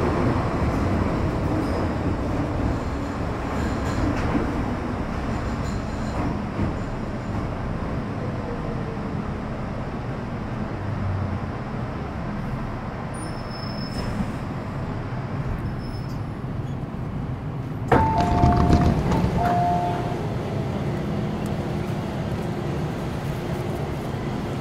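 Metro Cammell M-Train (MTR Kwun Tong Line EMU) with GEC GTO chopper traction, heard from inside the car. A falling whine over the first few seconds as it slows, a sudden clunk about 18 seconds in, then a two-note electronic chime lasting about two seconds.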